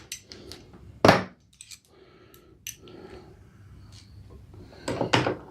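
Scattered clicks and knocks of a screwdriver working at a screw in a lawn mower's plastic axle cover, with one sharp knock about a second in and another near the end.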